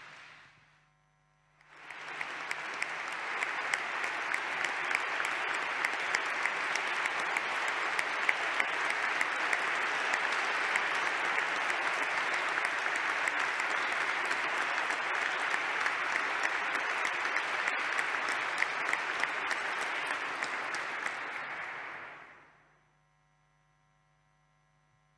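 Audience applause, a dense steady clatter of many hands clapping that starts about two seconds in, holds for about twenty seconds and dies away near the end.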